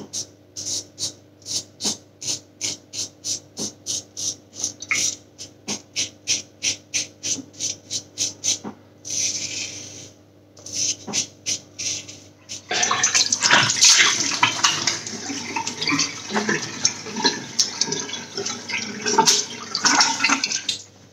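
Quick short razor strokes scraping stubble through thin lather, about two a second. About thirteen seconds in they give way to a tap running and water splashing as the face is rinsed at the sink.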